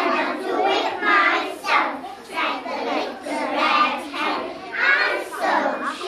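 A class of young children chanting a story aloud together in unison, in a sing-song group voice.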